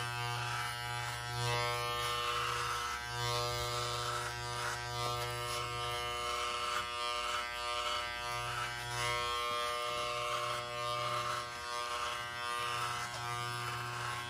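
Wahl electric shaver buzzing steadily as it shaves a man's head down to the scalp. Its low hum drops out briefly a few times while the buzz carries on.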